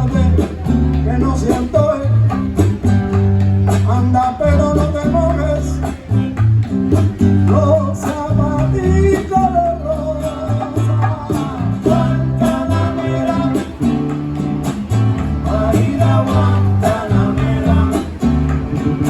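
Music: a song with guitar, a singing voice and a bass line moving from note to note.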